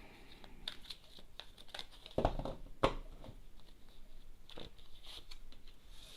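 Tarot cards being handled: soft rustling and small clicks of the cards, with a louder thump about two seconds in and a sharp tap just under a second later.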